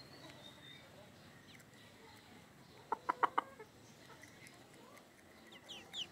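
Chicken clucking: a quick run of four or five short clucks about halfway through, with a few faint high chirps near the end.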